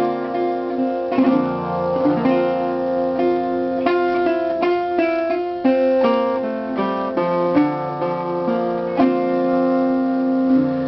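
Steel-bodied resonator guitar playing a picked instrumental introduction, individual notes ringing over a held bass in a slow blues-folk style.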